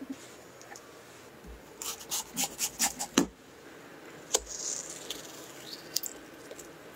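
A rapid run of seven or eight sharp knocks, the last the heaviest, then a metal melon baller digging and scraping into soft cantaloupe flesh, with a sharp click and a few lighter clicks.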